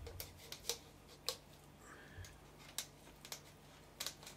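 Sharp filleting knife cutting along a salmon's backbone, the blade catching on the bones in faint, irregular clicks, over a steady low hum.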